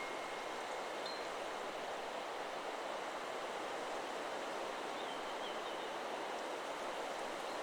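Steady rush of wind through forest trees, the leaves rustling, with a few faint bird chirps about a second in and again around five seconds in. The chime's last ringing tone dies away at the very start.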